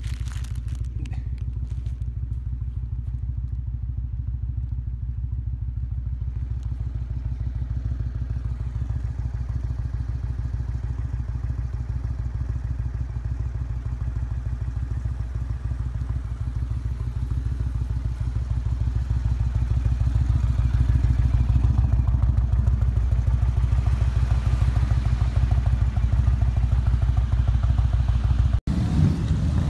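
Motorcycle engines running, a steady low rumble that grows louder about twenty seconds in. It breaks off for a moment near the end.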